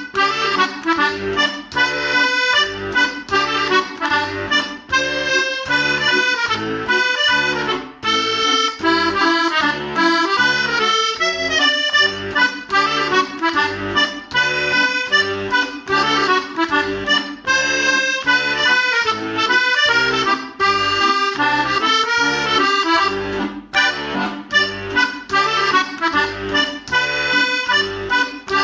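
Background music led by accordion, with a steady bass beat.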